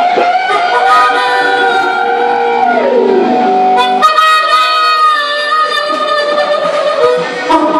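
Live blues band playing a slow blues, electric guitars and harmonica over drums. The harmonica is played into the vocal microphone with long held, bending notes, one sliding down in pitch about three seconds in.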